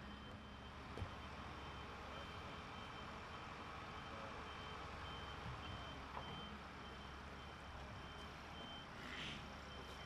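A vehicle's reversing alarm beeping over and over, faint, over the low steady rumble of heavy machinery.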